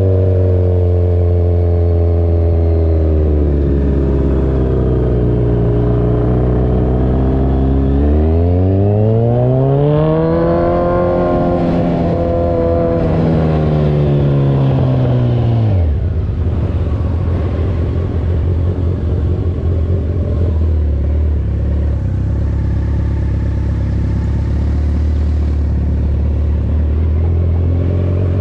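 Kawasaki Z1000 Sugomi's inline-four engine running through an Avionic aftermarket exhaust. It runs low and steady, then the note climbs over a few seconds to a higher pitch and holds. About halfway through it drops abruptly to a rougher, uneven low running note.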